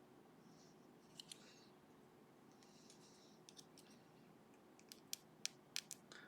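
Faint metallic clicks and light scraping from the milling on a Ruko lock's plug and brass sleeve as the lock parts are worked by hand. It begins with a couple of soft scrapes and a pair of ticks, then single clicks come more often toward the end.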